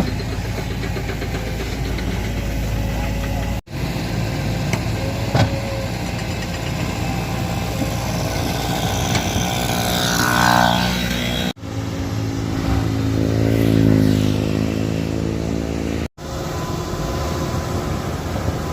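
Heavy diesel engines of an excavator and dump truck running, broken by three abrupt cuts between clips. In a later clip the engine revs up and settles back down, and about ten seconds in there is a louder, higher-pitched swell.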